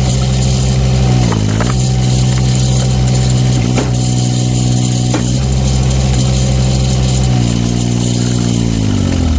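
Engine of a wood splitter or similar firewood machine running steadily. Its speed sags briefly twice under load, about a second and a half in and near the end, with a few sharp knocks along the way.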